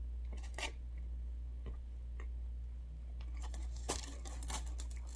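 Chewing a bite of cheesesteak sandwich, then about three and a half seconds in a cluster of crackling and tearing as a pizza slice is pulled apart from the rest of the pie in its cardboard box, over a low steady hum.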